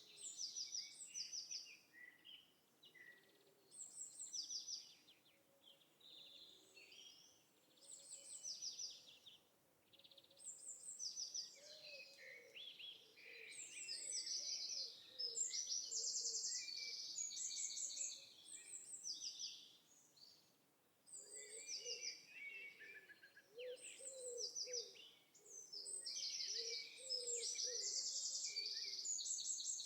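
Birds singing: bursts of high, fast trills come and go every second or two, with softer, lower warbling calls underneath in the second half.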